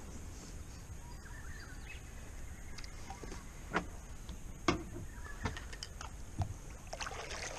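A few short knocks and clicks of fishing gear being handled against a plastic kayak hull, over a low outdoor background.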